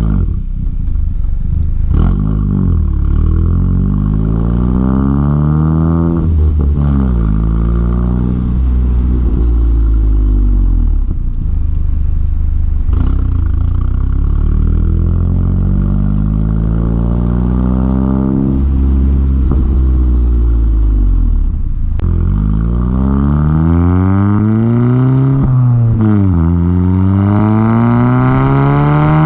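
Volkswagen MK7 GTI's turbocharged 2.0-litre four-cylinder exhaust, with a Becker downpipe and resonator delete, under repeated acceleration. The note climbs in pitch several times and drops back after each climb, as through gear changes.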